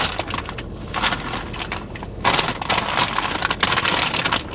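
Close-up chewing of crunchy popcorn, in uneven stretches of crackly crunching that grow louder about halfway through.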